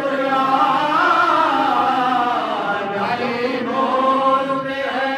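Men chanting a Shia devotional recitation in long, drawn-out sung lines into a microphone, one lead voice with others joining, with no instruments.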